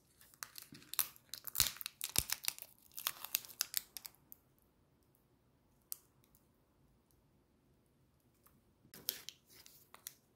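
A foil-lined plastic candy wrapper being pulled and torn open by hand, with a dense run of crinkling crackles over the first four seconds. A single click follows midway, then a shorter burst of crinkling near the end.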